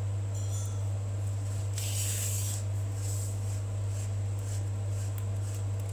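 A steady low hum, with a brief soft hiss about two seconds in.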